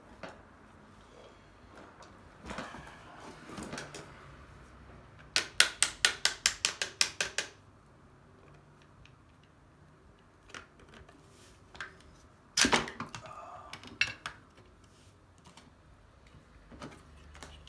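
Hand work on a washer dryer's door handle assembly: a rapid run of about a dozen sharp clicks, some six a second, and later a single loud knock, among scattered small clicks and taps as the handle's pin is worked into place.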